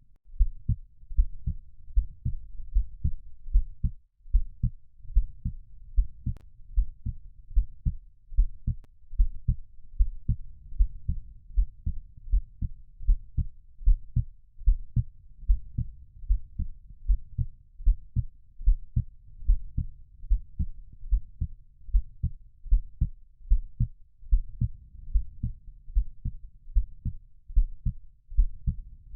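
Heartbeat sound: a steady, regular rhythm of low, dull lub-dub thuds repeating evenly.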